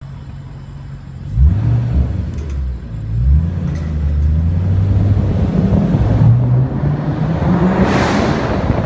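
Ford Shelby GT500's V8 engine idling, then revved sharply about a second and a half in and again near three and a half seconds, running at higher revs after that. Near the end there is a brief louder rush of noise, echoing in a parking garage.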